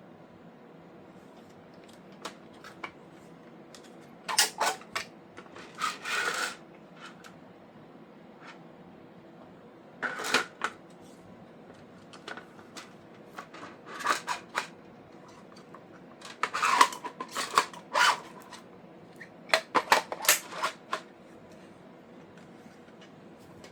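3D-printed PLA plastic parts being handled and fitted together: clusters of clicks and clatters several seconds apart, over a faint steady hum.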